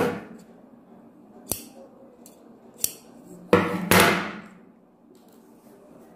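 Blouse fabric rustling as it is handled and turned over by hand close to the microphone, with a louder burst of rustling about halfway. Two short sharp clicks come before it, a little over a second apart.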